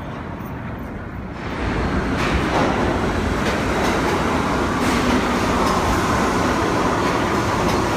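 New York City subway train moving along the station platform: a loud, steady rumble and rush of wheels on rails that sets in about a second and a half in, with a faint high whine over it later on.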